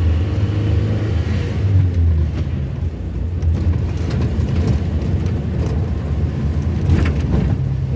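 Car engine running with road noise while driving, a steady low hum with a few knocks and rattles about seven seconds in.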